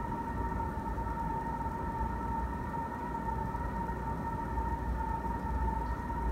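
Aquarium pump running: a steady, unchanging high whine over a low hum.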